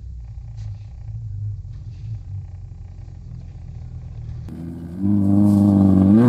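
Off-road race buggy's engine: a low rumble at first, then about five seconds in it comes in loud and close, its pitch rising and falling as the throttle works over rough ground.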